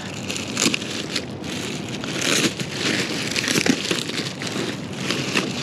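Packaging crinkling and rustling in bursts as newly unboxed neoprene chest waders are unwrapped and handled.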